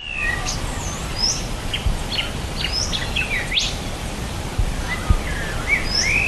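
Several birds calling: short chirps and quick whistles that slide up and down in pitch, over a steady low rumble.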